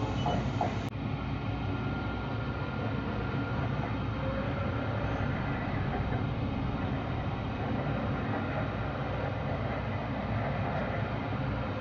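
Inside an Alstom Citadis light-rail tram in motion: the steady, even running noise of the tram on its rails, with a low rumble and faint steady tones above it.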